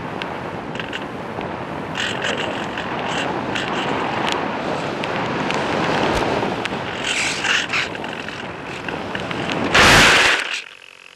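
Air rushing over the onboard microphone of a model motorglider in low, fast flight, broken by crackles. About ten seconds in, a short loud burst of noise as the glider ploughs into tall grass, then it drops to a faint hiss.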